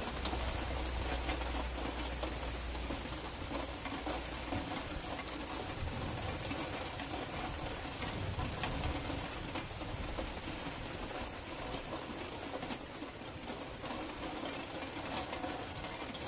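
Steady rain falling, with a low rumble of distant thunder dying away over the first few seconds.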